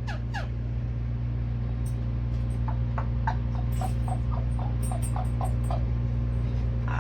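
Yellow-naped amazon parrot making short, quickly falling chirps: a few at the start, then a run of about a dozen in the middle, about three a second. A steady low hum runs under them.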